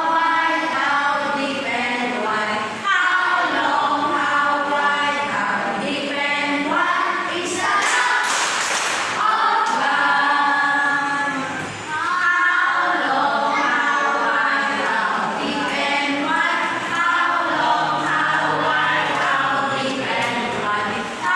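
Videoke (karaoke) singing, loud and amplified through loudspeakers. A burst of hiss cuts through about eight seconds in and lasts a second or so.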